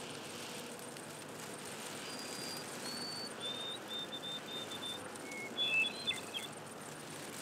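A songbird singing clear whistled notes: two long high notes, each a step lower, then a quick run of short notes on one lower pitch, followed by a few brief mixed notes. The song is faint, over a low steady hiss.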